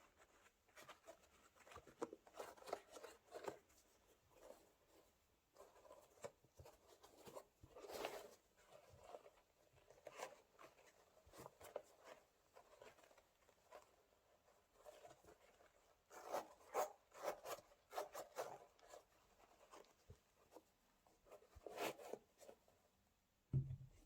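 Hands handling new trainers and their packaging: intermittent rustling, crinkling and light scuffs in short bursts, with a dull thump near the end.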